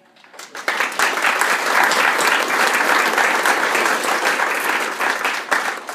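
Audience applauding. The clapping swells up about half a second in, holds steady, and dies away near the end.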